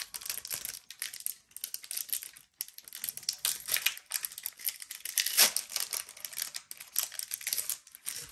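Foil wrapper of a Pokémon TCG Lost Origin booster pack crinkling and tearing as it is opened by hand. The crackle is irregular and loudest about five seconds in.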